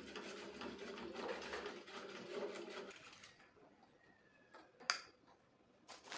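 A small electric motor runs with a steady buzzing hum for about three seconds, then stops. A couple of sharp clicks follow.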